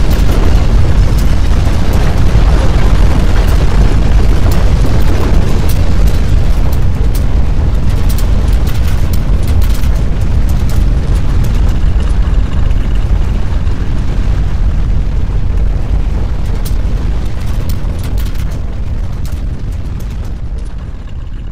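Deep, loud earthquake rumble with scattered crackling and rattling, fading slowly over the last several seconds as the shaking dies away.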